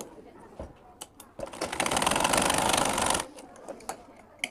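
Singer sewing machine stitching: a short run of rapid, even ticking lasting under two seconds, with a few light clicks before and after.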